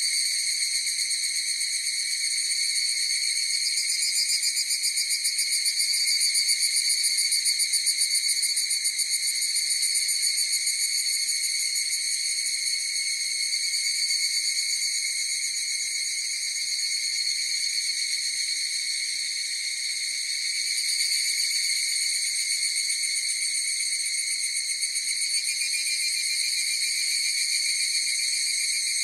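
A chorus of higurashi (evening cicadas, Tanna japonensis) calling without a break: overlapping high-pitched, rapidly pulsing calls that swell and ease a little.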